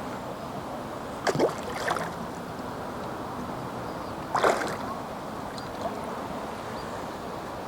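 Steady outdoor wind and lake-water noise while a hooked carp is played on a pole. Two brief, sharp splashing or swishing sounds stand out, about a second and a half in and again about four and a half seconds in.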